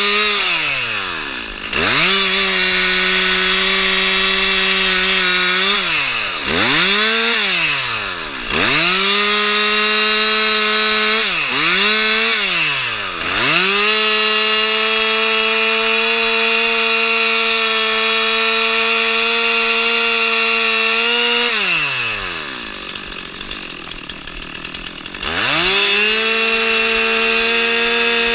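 Gas chainsaw running at high revs, the throttle released and reopened several times so the engine note drops and climbs back; near the end it falls to a low idle for a few seconds before revving up again.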